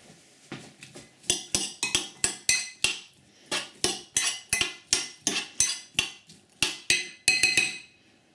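A utensil clinking against a glass Pyrex dish while stirring chopped onion in it: a quick run of sharp clinks, about three a second, each with a short glassy ring.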